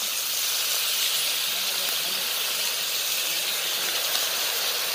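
Chicken pieces sizzling in a hot pot over a wood fire: a steady hiss.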